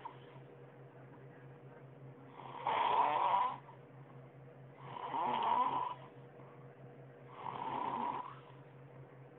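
A sleeping person snoring: three heavy snores about two and a half seconds apart, each lasting about a second.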